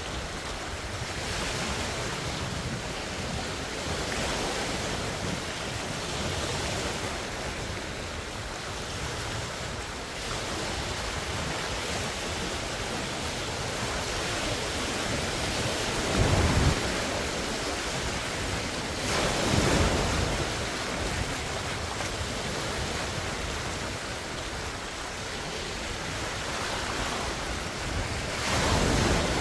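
Wind-driven lake waves washing and splashing in a steady rush, with louder surges of breaking water about halfway through, again a few seconds later, and near the end. Wind buffets the phone's microphone.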